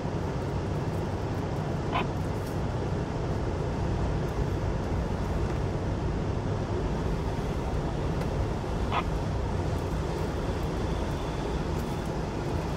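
Steady low vehicle engine rumble heard from inside a car's cabin, with two brief high chirps, one about two seconds in and one near nine seconds.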